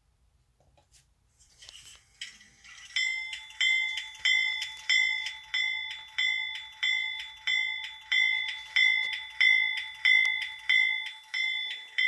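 Diesel locomotive bell sound played by an ESU LokSound 5 Micro sound decoder in an N-scale Pennsylvania Railroad U25B model, ringing steadily at about one and a half strikes a second. It is a newly selected bell sound, and it starts about two seconds in.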